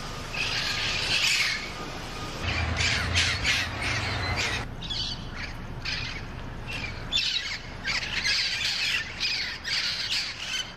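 Wild parrots squawking: a rapid run of harsh, grating calls, several birds overlapping, with a low rumble under the middle few seconds. The calls cut off abruptly at the end.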